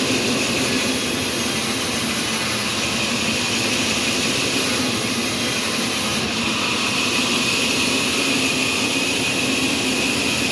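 Sawmill machinery running steadily: a continuous mechanical rush with a steady hum, the sound of a running saw or motor.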